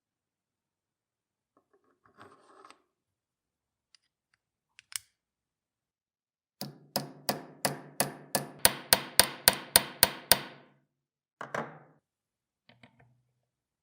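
Restored 1930s Rawlplug Mechanical Hammer, a hand-powered hammer drill, striking about fifteen quick ringing metal blows that speed up toward the end. It is preceded by faint handling and a click, and followed by a single knock and a few light clicks.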